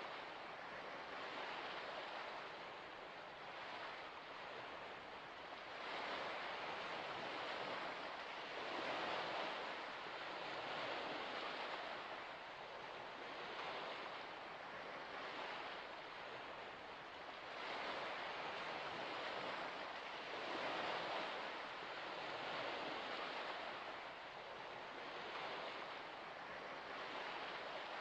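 Soft rushing of wind and lapping water, swelling and fading every few seconds.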